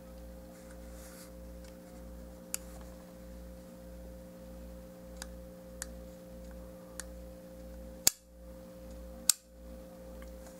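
A few sharp plastic clicks, the loudest two near the end, from the spring-loaded jaw of a Transformers Beast Wars Airhammer toy snapping shut as it is worked by hand. A steady hum runs underneath.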